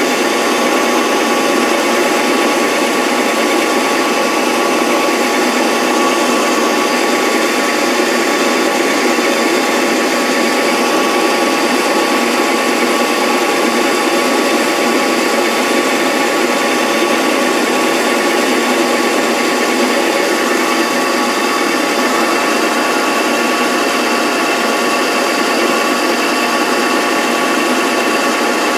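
Small power-tool motor running steadily with a whine, driving the cutter that carves the ornamental rose engine pattern into a wooden disc.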